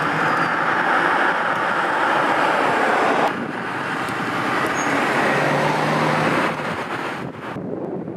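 BMW 5 Series Gran Turismo driving on the road: steady tyre and road noise with a low engine hum showing briefly about five seconds in. The sound shifts abruptly a little over three seconds in and again near the end as the shots cut.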